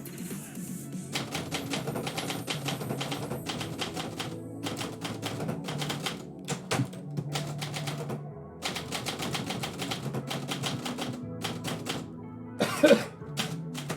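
Typewriter keys striking in quick runs broken by short pauses, with one louder clack near the end. Background music plays underneath.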